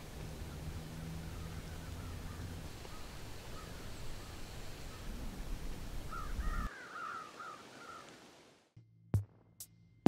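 Crows cawing, a run of short harsh calls that grows thickest about six to seven seconds in, over a faint low rumble of wind. The rumble cuts off abruptly, and a couple of sharp clicks come near the end.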